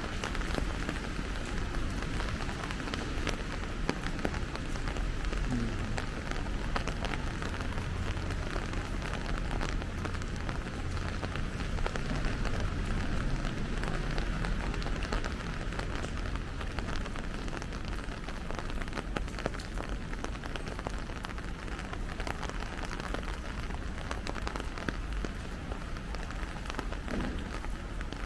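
Steady rain falling, with many small drop ticks over a steady low rumble.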